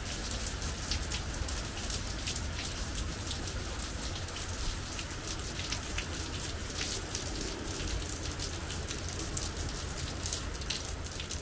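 Steady rain falling, with many separate drops ticking sharply on a surface close by.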